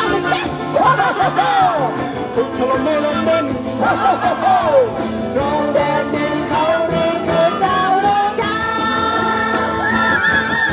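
A live band with acoustic guitars accompanies a man and a woman singing a Thai song through a PA speaker. Near the end, the singing settles into one long held high note.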